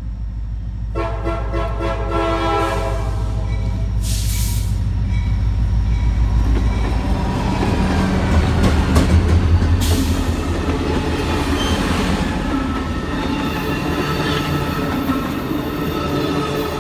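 A CSX GP40-2 diesel locomotive with an EMD 16-cylinder turbocharged engine sounds its horn about a second in. It then passes close by, its engine rumble loudest about halfway through, followed by the cars of the track geometry train rolling past.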